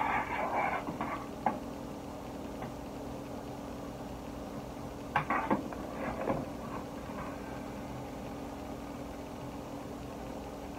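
Dishes and cooking utensils clattering and knocking in a few short bursts at the start and again about five seconds in, over a steady low hum.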